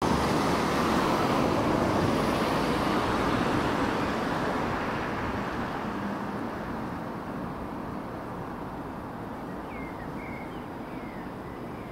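Rushing vehicle noise, loudest at first and fading over the first six or seven seconds to a lower steady rumble. A few short bird chirps come near the end.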